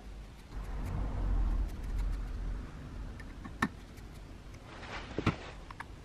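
A screwdriver turning the blade-clamp screws on a Makita 1901 planer's cutter drum. Low handling rumble at first, then a sharp click about three and a half seconds in and a few more clicks near five seconds.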